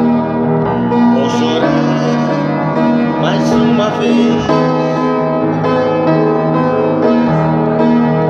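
Instrumental music led by a keyboard, playing held chords and a melody, the notes changing every half second to a second.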